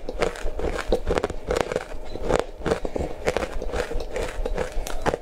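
Close-miked crunching and chewing of powdery frozen ice coated in matcha powder: a rapid, irregular stream of crisp crunches.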